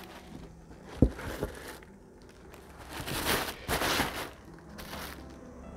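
Packing material rustling and crinkling as a shipping box is unpacked by hand, with a sharp knock about a second in.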